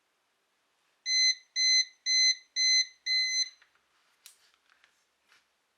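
Multicomp Pro MP730679 digital multimeter's NCV buzzer beeping five times, about two beeps a second, the last one slightly longer: the alert for a live AC voltage detected without contact. A few faint clicks follow.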